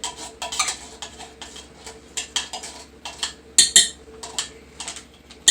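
A metal spoon scraping and clinking against kitchenware in irregular knocks, with two sharp clinks close together about three and a half seconds in, over a faint steady hum.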